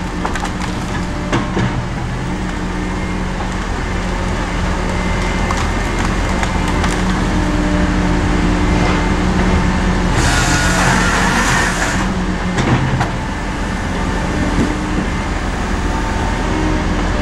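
Tigercat 234B log loader's diesel engine running steadily under load as the grapple swings logs, with scattered knocks and a hissing burst lasting about two seconds, about ten seconds in.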